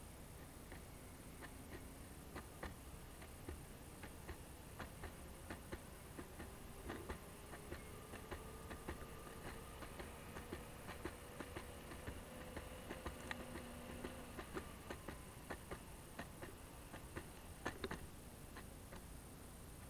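Electric skateboard rolling over pavement: faint, irregular ticks and clicks from the wheels and deck, with a faint whine that rises slowly through the middle and a few louder clicks near the end.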